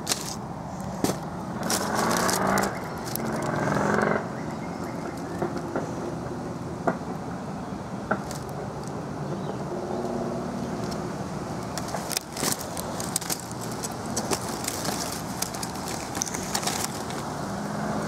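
Outdoor ambience of distant road traffic, swelling about two to four seconds in, with scattered crackles and clicks of dry leaves and twigs being disturbed close by.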